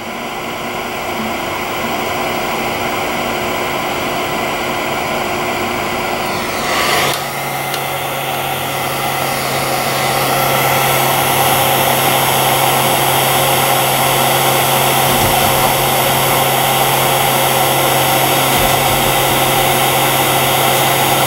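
Heat gun blowing a steady rush of hot air onto a circuit board to melt the solder under a surface-mount regulator chip. About seven seconds in there is a brief swell, after which a low hum joins and the rush grows a little louder.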